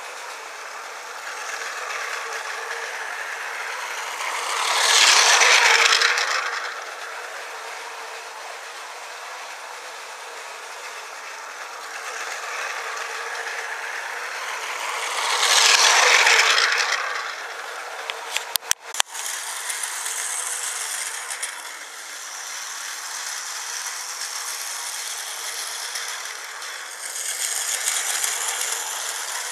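Battery-operated Tomy Plarail toy high-speed train running on blue plastic track: its small motor whirs and its wheels rattle steadily. The sound swells loud twice, about five and sixteen seconds in, and there are a few sharp clicks just before the twenty-second mark.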